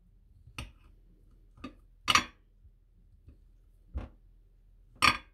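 A kitchen knife slicing through a large ham sausage and tapping the glass baking dish underneath at the end of each cut. There are five separate sharp clicks, with the loudest ones about two seconds in and near the end.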